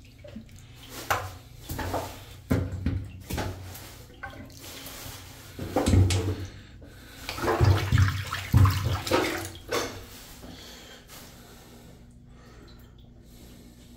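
Backed-up, sewage-filled bathtub water sloshing and gurgling in irregular splashes as a rod is worked in it near the drain, a sign of the clogged main toilet stack; the splashing dies down after about ten seconds.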